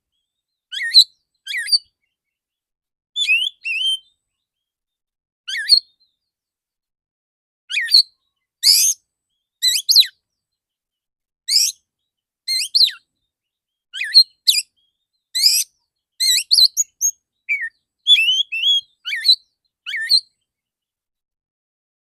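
Male oriental magpie-robin singing loud, clear, short phrases of high whistles and sharp chirps, a new phrase every second or so with silent gaps between.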